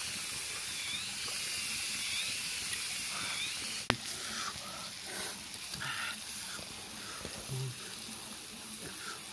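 Sliced vegetables and meat sizzling on a flat stone slab heated over a wood fire: a steady hiss with a few small pops. A single sharp click comes about four seconds in.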